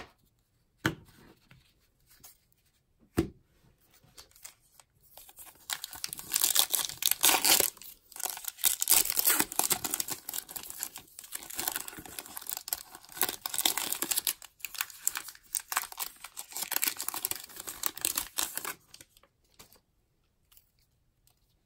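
Foil wrapper of a Topps baseball card pack being torn open and crinkled by hand. The tearing and crackling starts about five seconds in and lasts some thirteen seconds. A couple of short knocks come before it.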